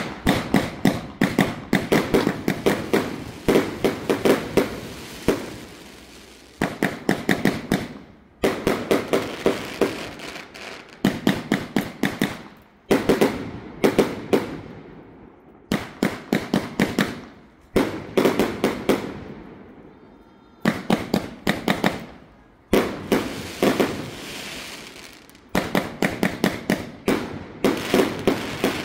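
Consumer aerial firework cake firing in volleys: clusters of rapid sharp bangs from the shots and their bursts overhead, a fresh cluster every couple of seconds with short lulls between.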